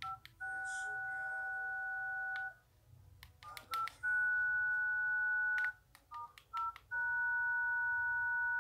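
A feature phone's keypad sounding touch-tone (DTMF) beeps as digits are dialled: a few short beeps and three long held tones of about two seconds each, with light key clicks between them.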